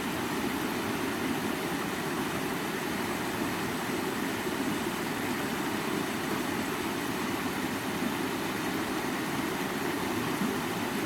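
Steady rush of water flowing in a stream, an even, unbroken sound.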